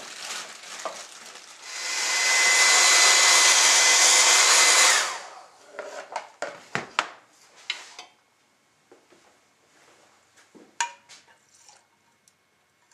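Hair dryer blowing for about three seconds, a loud even hiss with a thin steady whine, warming a pan of cast bullets so the hot lube will stick; it cuts off suddenly. Then several knocks and clatters of the pan and tools being handled.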